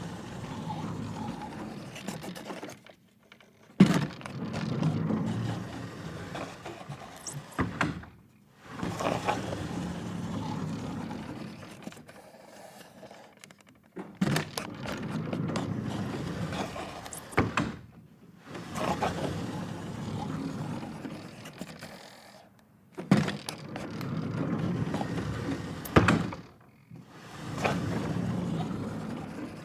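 Wooden pocket door sliding open and shut again and again: about seven low rumbling slides of a few seconds each, with a sharp knock at several of the starts and stops.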